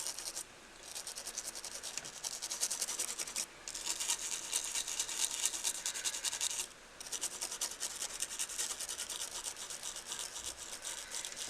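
A small brush wet with alcohol scrubbing the contact area of a hard drive's controller board in quick, scratchy back-and-forth strokes, degreasing the contacts. The scrubbing stops briefly three times: about half a second in, at about three and a half seconds, and at about seven seconds.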